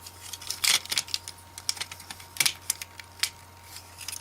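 Hard plastic parts of a Transformers action figure clicking and snapping as they are folded by hand into vehicle mode. The clicks are irregular and sharp, loudest just under a second in and again about two and a half seconds in.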